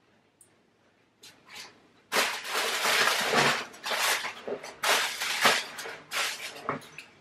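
Aluminium foil tented over a roasting turkey breast crinkling and rustling in quick irregular bursts as it is handled, starting about two seconds in after a near-silent start.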